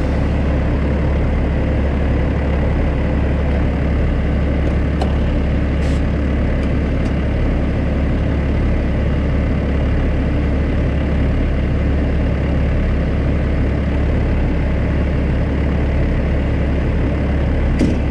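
Heavy diesel engine idling steadily, with a deep hum.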